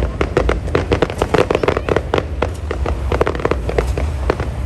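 Fireworks going off in a dense, continuous barrage: many sharp bangs and crackles a second over a steady low rumble.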